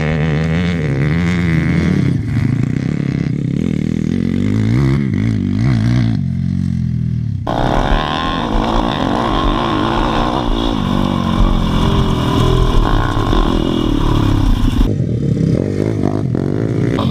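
MRF 170 pit bikes' small single-cylinder engines revving hard off-road, the pitch rising and falling with the throttle and gear changes. The sound shifts abruptly about halfway through, and again near the end.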